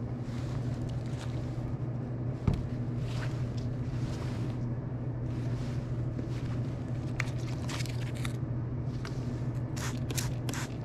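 Nitrile-gloved hands handling metal multi-pin cannon plug connectors: scraping and rustling, with one sharp knock about two and a half seconds in. Near the end come several short squirts from a trigger spray bottle of connector cleaning solution, over a steady low hum.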